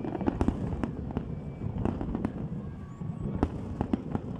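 Fireworks going off: a rapid, irregular string of sharp bangs and crackles, several a second, over a continuous rumble of distant explosions, with faint rising whistles of shells going up.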